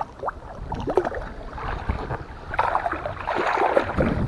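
Water splashing and sloshing as a hooked small tarpon thrashes at the surface in the shallows while being landed, in irregular bursts, busiest in the second half.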